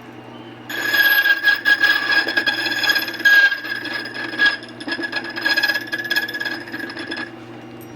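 Borkey key-duplicating machine cutting a Schlage key blank: the cutter wheel sets in about a second in with a high whine and rasping scrapes against the blank, and stops near the end, over the machine motor's steady hum.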